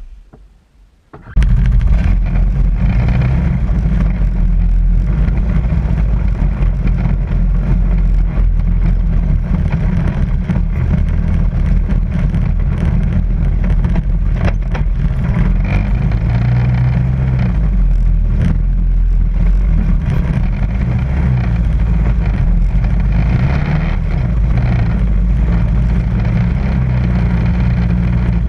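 Off-road vehicle's engine running steadily with a low rumble as it drives over rock and a dirt trail, with a few short knocks. The sound cuts out right at the start and comes back about a second in.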